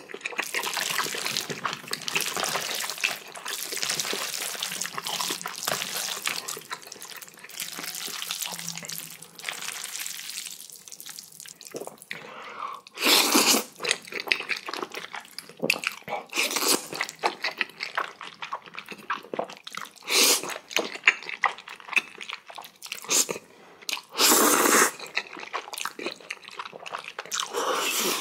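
Close-miked eating of jajangmyeon, black bean sauce noodles: wet noodle slurping and chewing. There is a long stretch of continuous slurping first, then chewing clicks broken by several short, loud slurps in the second half.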